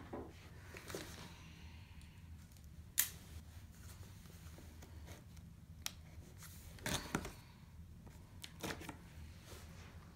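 Faint clicks, knocks and scrapes of cardboard kit boxes being handled and opened, with a sharp click about three seconds in and a cluster of knocks around seven seconds.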